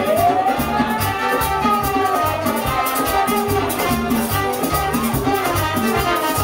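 Live Latin dance band in a salsa style playing amplified in a club, with a steady rhythmic beat of percussion and bass under keyboard and melody lines.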